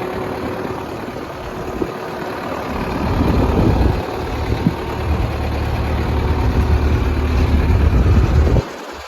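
New Holland LB75B backhoe loader's diesel engine idling steadily, cutting off suddenly near the end.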